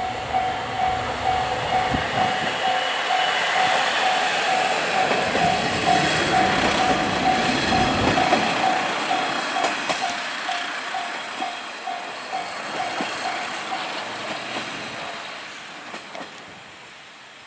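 Japanese level-crossing warning bell ringing in even electronic dings about twice a second while a Tarumi Railway diesel railcar passes over the crossing with wheel clatter. The train noise peaks and then fades, and the bell stops about 15 seconds in as the crossing clears.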